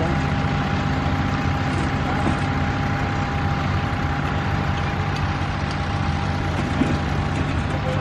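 Vintage Farmall tractor engine running steadily, a low even note with a steady high whine above it.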